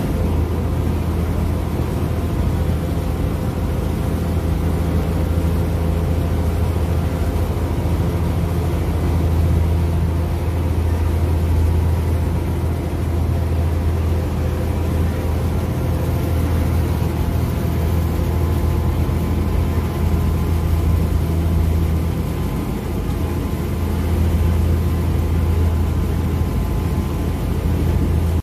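River ferry's engine running steadily under way, a low, even drone with a few steady overtones above it.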